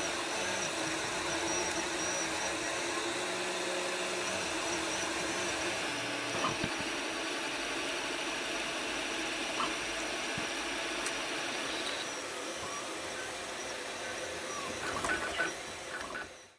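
Proforge 3D printer running a print: a steady hiss of its cooling fans under the whine of the stepper motors, which shifts in pitch as the head moves. A few faint ticks come in, with a small cluster near the end.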